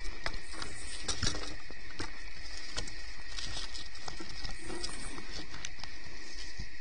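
Steady high chirring of crickets, with light rustling and scattered small clicks over it.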